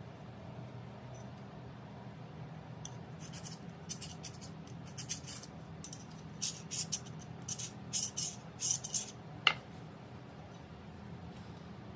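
Metal scribe scratching a centre line along the marker-blackened edge of a forged steel knife blank: a string of short, sharp scraping strokes, then a single sharp click near the end.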